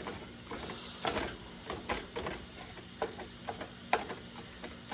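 Spoon clicking and scraping against a frying pan as ground beef is broken up, a string of irregular light clicks over a faint steady hum.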